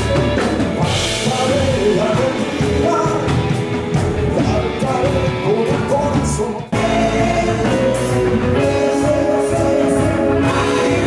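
Worship band music with singing over guitar and drum kit, broken by a sudden brief drop about two-thirds of the way through.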